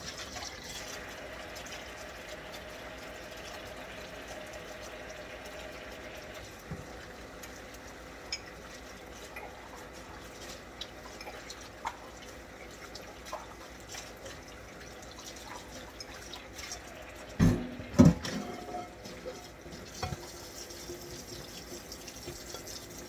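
Hand-washing dishes at a kitchen sink: tap water running steadily, with small clinks of dishware and two loud knocks close together about three-quarters of the way through.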